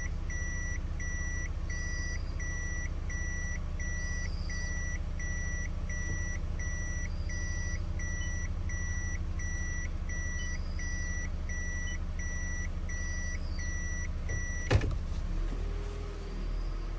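Toyota Esquire's in-cabin reverse warning buzzer beeping steadily in reverse gear, about three beeps every two seconds, over the engine idling. About fifteen seconds in a sharp clunk comes as the shift lever goes into Park, and the beeping stops.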